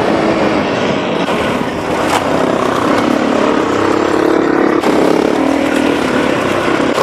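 KTM 500 EXC enduro motorcycle running at varying throttle on a muddy trail, its engine pitch rising and falling under a steady loud rush of wind noise.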